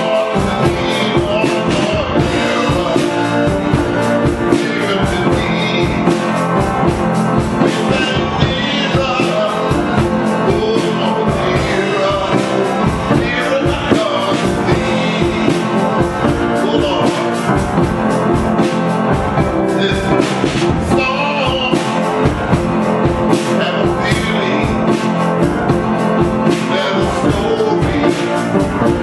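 Live church music with a steady beat: a man singing an old gospel song over the band.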